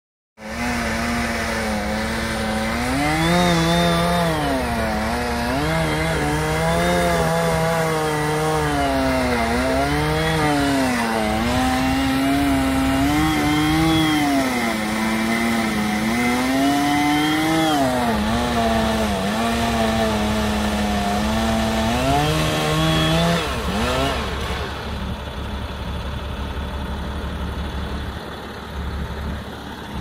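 Chainsaw running, its pitch repeatedly dipping and climbing back as it revs and bogs under load in the wood, then stopping about 24 seconds in. A truck engine idles underneath throughout.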